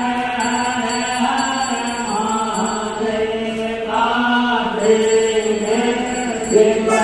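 Hindu devotional chant sung to music, a voice holding long steady notes that shift in pitch every second or two.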